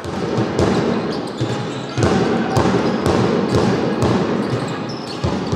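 Basketball being dribbled on a gym floor during live play, a series of sharp bounces over the murmur of a crowd in a large hall.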